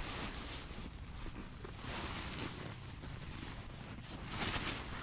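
Wind rumbling on the microphone, with several swells of rustling and crunching from someone setting up an ice-fishing tent on snow. The loudest swell comes about four and a half seconds in.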